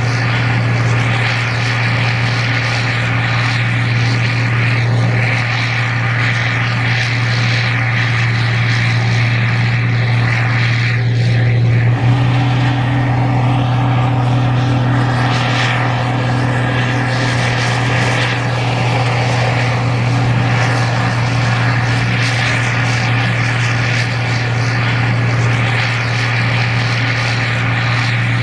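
Gleaner R52 combine harvester running steadily while harvesting corn: a constant, loud diesel drone with a low hum, its tone shifting slightly about twelve seconds in.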